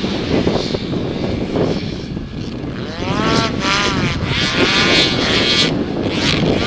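Modified 801+ cc race snowmobiles racing up a hill-cross course, their engines revving hard, the pitch sweeping up and falling back several times.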